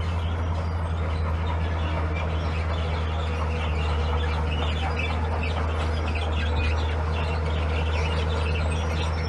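Heavy diesel earthmoving machine engine running steadily at an even, low drone, with scattered short high chirps over it.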